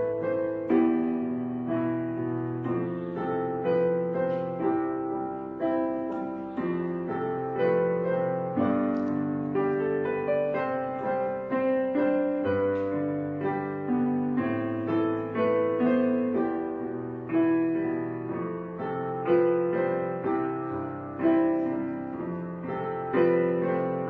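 Background piano music, a calm run of notes and chords at a moderate pace.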